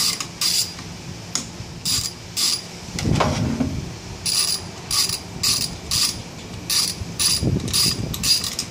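Socket ratchet wrench clicking in short bursts, about two a second, as it backs the reverse-threaded nut off a vacuum cleaner motor's shaft. A couple of duller knocks come in between.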